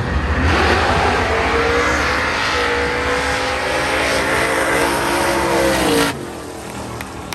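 High-performance car engine at full throttle during a race pass, its pitch climbing at first and then holding high, cutting off abruptly about six seconds in.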